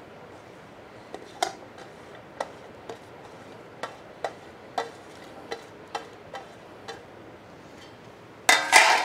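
Sliced onions being scraped by hand off a steel plate into a steel pressure cooker: a string of light, irregular metallic taps. Near the end there is a louder, brief clatter of metal that rings briefly.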